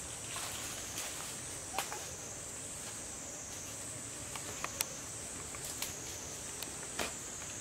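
Steady, high-pitched drone of an insect chorus, with a few scattered faint clicks and ticks.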